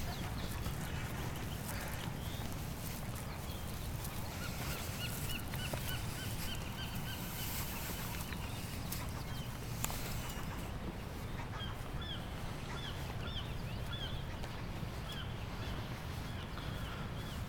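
Gulls calling in runs of short repeated notes, one run about a third of the way in and another through the second half, over a steady low background rumble.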